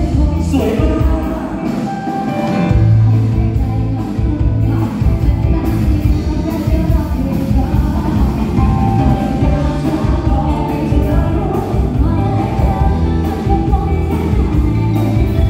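Live band playing a song, with a singer over a heavy bass line.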